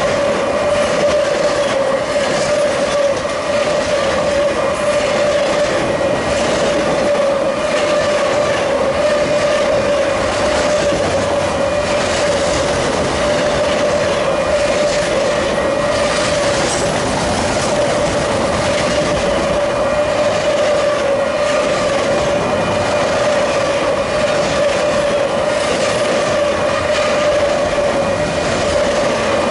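Freight train autorack cars rolling steadily past: the continuous rumble and clatter of steel wheels on the rails, with a steady whine running through it.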